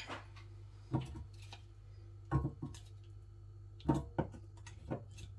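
Potato wedges set down one by one with silicone-tipped tongs onto the metal crisper plate of a Gourmia air fryer basket: about seven soft knocks, a second or so apart, some in quick pairs.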